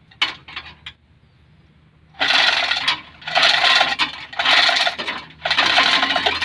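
Manual chain block's hand chain rattling through the hoist as an engine is raised or lowered: after a short pause, a run of pulls starts about two seconds in, each a metallic clatter of links, about one a second.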